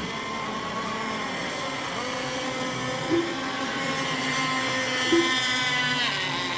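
Several radio-controlled racing boats' small engines running together in a high buzzing drone, the pitch drifting up and down as they circle the course. A short low blip is heard twice, about two seconds apart.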